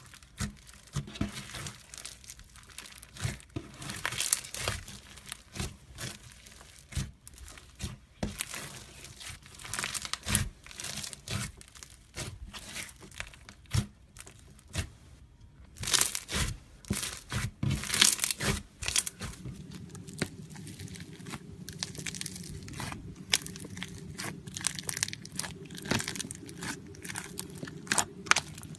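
Slime being squeezed and worked by hand, giving a long run of irregular crinkly crackles and pops. A steady low hum comes in about two-thirds of the way through.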